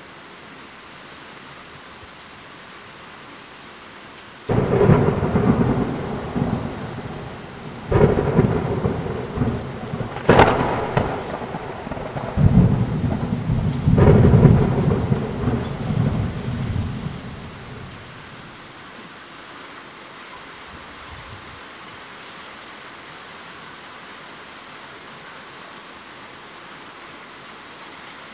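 Steady rain falling, with a peal of thunder about four seconds in: about five sharp cracks, each followed by rumbling, over some ten seconds, then the rumble fades back to the rain.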